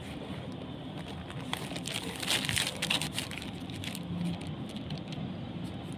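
Low background noise with faint rustling and a few scattered clicks, brightest about two and a half seconds in.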